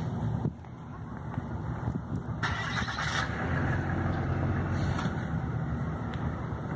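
Steady low hum of a moving car's engine and tyres, heard from inside the cabin, with a brief rushing noise about two and a half seconds in.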